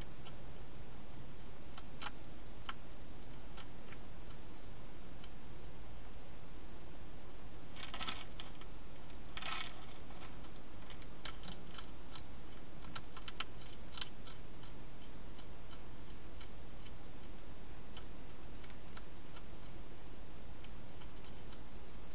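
Wild hedgehog crunching dry food: scattered crisp clicks, with two longer crunches near the middle and a quick run of ticks just after, over a steady hiss.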